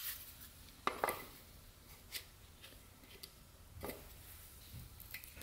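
Faint, scattered clicks and light taps, about half a dozen, as a piston and its piston rings are handled by hand. The clearest come at the very start and about a second in.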